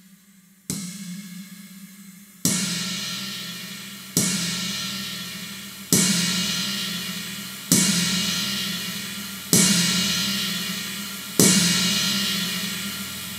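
Roland TAIKO-1 electronic taiko drum sounding its Dark Ambient sound bank: seven struck notes about every two seconds, each a bright cymbal-like wash that fades slowly over a steady low drone.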